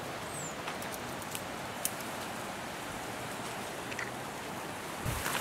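Outdoor ambience in dry scrub: a steady hiss with scattered small clicks and crackles, and a brief high chirp under a second in. Near the end, louder rustling and low thumps of movement through the brush.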